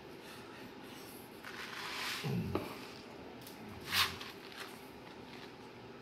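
Emerson CF-523A-W 'Blenderfan' ceiling fan running steadily on a mid setting of a solid-state speed control, with a few small clicks and rustles, the sharpest click about four seconds in.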